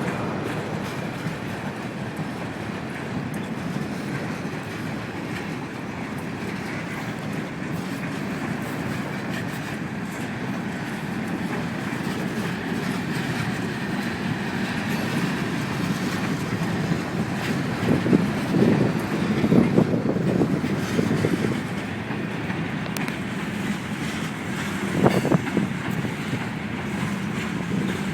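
Freight cars of a long KCS manifest train rolling past: a steady rumble of steel wheels on rail, with louder clattering about two-thirds of the way through and again near the end.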